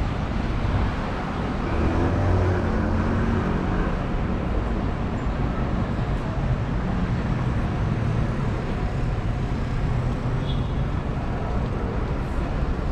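Steady city street traffic: motor vehicles running past, with a low engine hum that swells a little about two seconds in.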